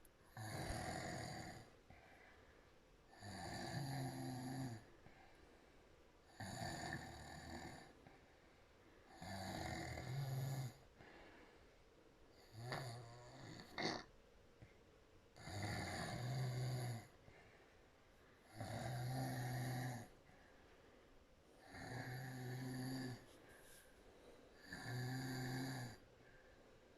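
A woman snoring through a wide-open mouth, one snore about every three seconds, each lasting over a second, nine in all.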